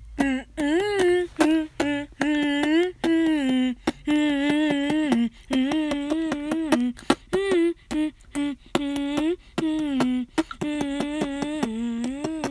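Vocal beatboxing: short hummed, sung notes that bend up and down in pitch, broken up by quick, sharp mouth-made percussion clicks.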